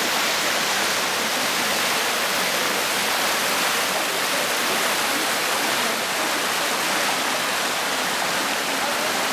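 Waterfall: a steady, even rush of falling water with no letup.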